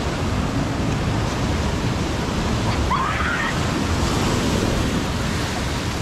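Surf washing onto the beach, a steady rush of breaking waves with wind buffeting the microphone. A brief rising squeal sounds about halfway through.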